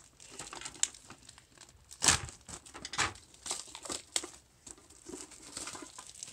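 Clear plastic shrink wrap being pulled off a trading-card box and crumpled by hand: an irregular run of crinkles and crackles, the loudest about two seconds in.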